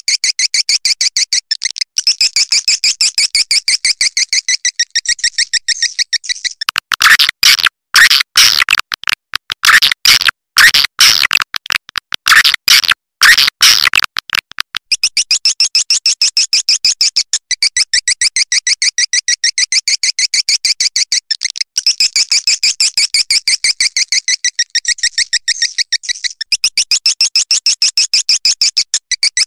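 Swiftlet lure call: fast, high, buzzy twittering trills repeating without pause, with a louder and harsher stretch of chattering from about 7 to 14 seconds in.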